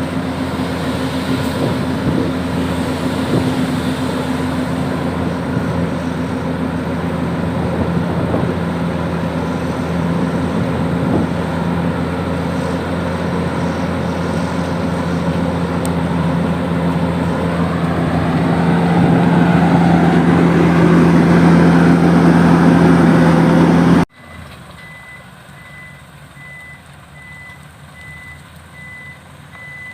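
Heavy dump truck diesel engine running steadily, growing louder before cutting off abruptly. After the cut, a quieter engine runs under a reversing alarm beeping at an even rate.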